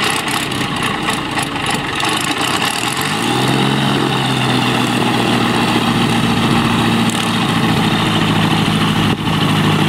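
Light aircraft's propeller engine running as a floatplane taxis on the water; about three seconds in its pitch rises briefly, then holds steady. A steady wash of wind and water noise runs beneath it.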